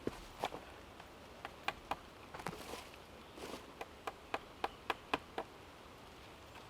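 Light wooden clicks and knocks from wooden pegs and saw-horse timber being handled and tapped, with a quick run of about six taps about four seconds in.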